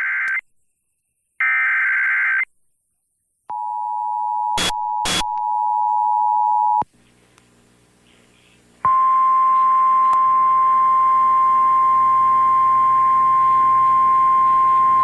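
Emergency Alert System broadcast: the last two screeching SAME header data bursts, then the two-tone EAS attention signal, which crackles twice and cuts out about seven seconds in as the station's transmitter drops and reboots. Faint hum follows for a couple of seconds, then a steady single-pitched alert tone, the NOAA Weather Radio tone, comes on and holds.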